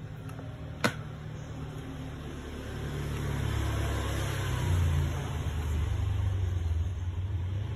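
Cables being handled and plugged into a conference-system hub, with one sharp click about a second in, over a low steady rumble that grows louder from about three seconds in.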